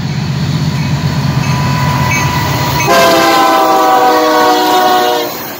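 Union Pacific diesel freight locomotives passing close by with a low engine rumble. About three seconds in, the lead locomotive's multi-chime air horn sounds for about two seconds, its chord dipping slightly in pitch.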